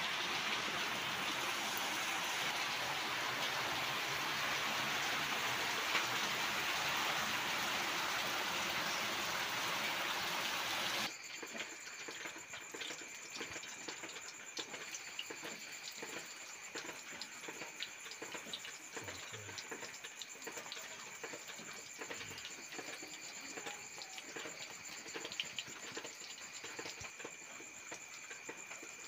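Water poured in a steady stream over small cleaned fish on a taro leaf, rinsing them. About 11 seconds in it cuts off suddenly, and the soft crackle of a wood fire burning under a cooking pan follows.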